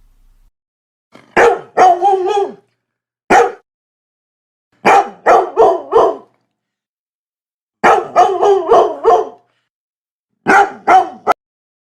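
A dog barking in short, quick bursts of three to five barks, plus one single bark, with pauses of about a second between bursts.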